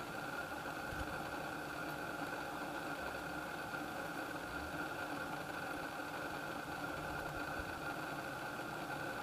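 A steady mechanical hum of several constant tones that does not change.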